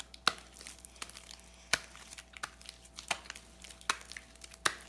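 Homemade shaving-cream slime being worked by hand, giving irregular sharp sticky pops and crackles as it is squeezed and pulled.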